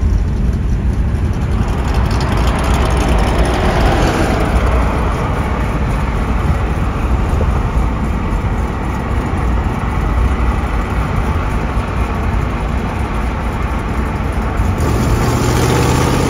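Car driving at speed, heard from inside the cabin: steady road and engine noise with a heavy low rumble. Near the end a pitched engine note comes in and rises.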